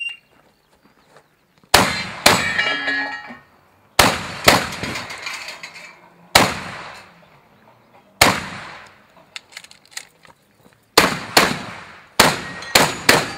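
A short electronic start beep, then about eleven shotgun shots fired in quick pairs and singles with pauses between, each cracking and echoing away. A metallic ringing follows the second shot.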